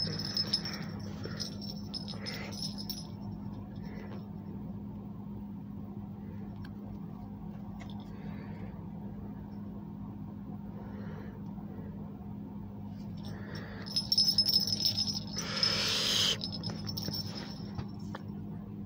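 Hands handling a plush toy dog and its paper hang tag: soft rustling and fumbling, with a louder burst of handling noise about fourteen to sixteen seconds in, over a steady low hum.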